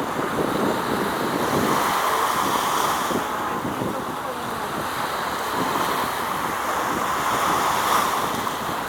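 Wind blowing across the microphone: a steady rushing noise that swells and eases every few seconds, with irregular low rumbling buffets.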